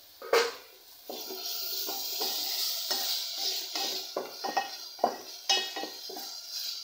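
A metal spoon stirring and scraping a frying tomato and onion mixture around a pan, with a steady sizzle under it. A sharp clink comes near the start, and irregular scrapes and knocks against the pan follow, the loudest two about a second apart near the end.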